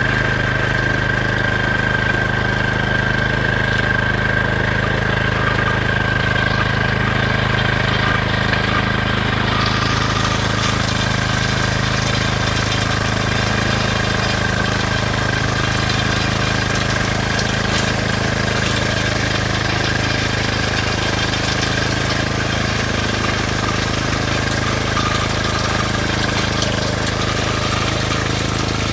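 A vehicle engine running steadily with a constant hum and noise.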